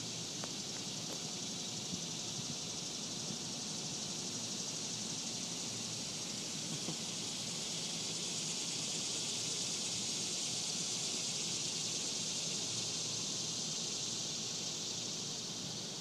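Cicadas buzzing: a steady high hiss that swells louder through the middle and eases off near the end.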